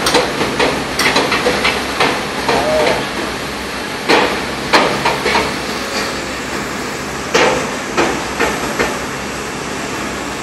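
Irregular sharp knocks, some single and some in quick runs of three or four, over a steady background of work-site noise.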